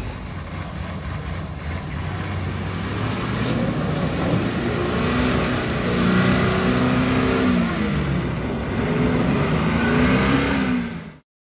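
Nissan Patrol's engine running under load as it pushes through muddy water, with the revs rising and falling repeatedly from a few seconds in. The sound cuts off abruptly near the end.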